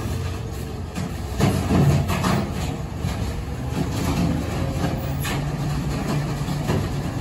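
Dennis Eagle Elite 6 garbage truck's diesel engine running at low speed with a steady low hum. A few short knocks come over it about a second and a half, two and five seconds in.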